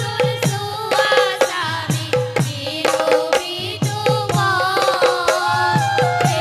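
Assamese dihanam devotional song: several women's voices singing together over regular strokes of a two-headed barrel drum, whose deep strokes bend downward in pitch, with a bamboo flute playing along.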